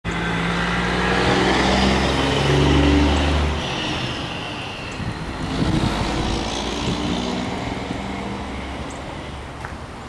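A motor vehicle engine running, loudest about three seconds in and then fading away. A fainter engine hum rises again around the middle.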